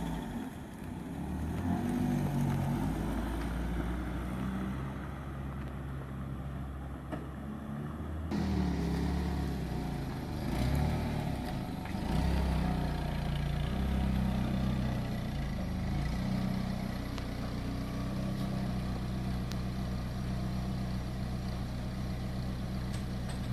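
Car engine running while driven, its pitch rising and falling as it revs. The sound changes abruptly about eight seconds in.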